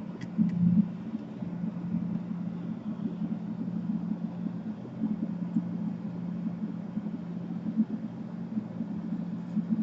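Steady low background hum, with a few light clicks in the first second.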